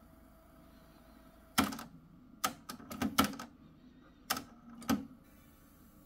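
Kenwood KX-3060 cassette deck's tape transport mechanism clicking and clunking about eight times over three seconds as it changes mode and the tape starts to run.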